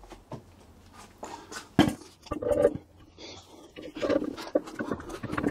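Clunks, knocks and scrapes of a heavy 02M gearbox casing being lifted and slid onto an engine's adapter plate, with a sharp metallic knock about two seconds in. Short grunting, straining breaths come with the effort.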